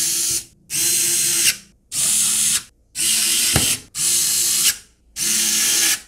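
Pen-style electric precision screwdriver driving small screws into a keyboard case. It runs in about six short spurts of under a second each, with brief pauses between them.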